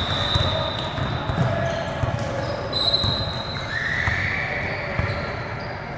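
A ball bouncing and thudding on a hard indoor court in irregular knocks, with a few drawn-out high squeaks and voices in the background.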